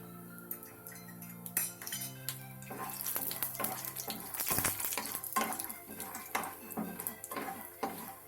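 A spoon stirring and scraping in a pan of frying chana dal and mustard seeds in oil, with repeated metal clinks against the pan. The clinking begins about two seconds in, and a sizzling hiss swells in the middle.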